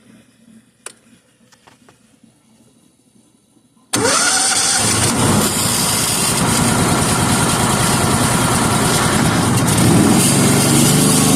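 An 8-gallon-per-minute pressure washer's gas engine starting abruptly about four seconds in, after a few light clicks, then running loud and steady.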